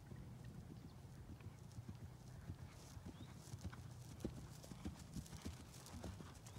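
Hoofbeats of an Oldenburg mare cantering on grass, a run of soft thuds that grows louder and more distinct from about halfway through as she comes nearer.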